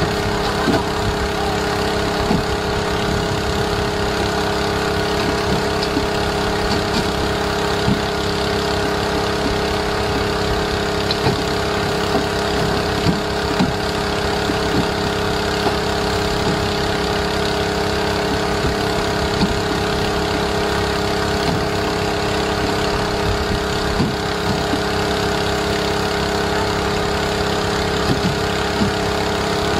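Fishing boat's engine running steadily, with occasional short knocks.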